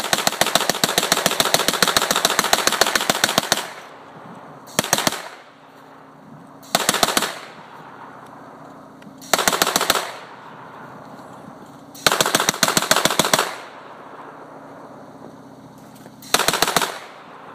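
M2HB Simfire replica heavy machine gun firing in bursts: one long rapid burst of about three and a half seconds, then five short bursts a couple of seconds apart, each trailing off in an echo.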